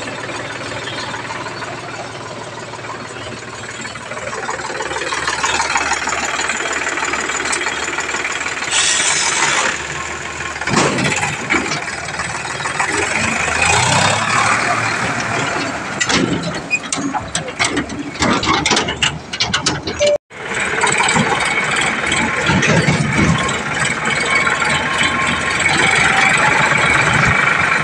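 Sonalika DI 745 III tractor's diesel engine running, with a run of sharp knocks and clanks partway through.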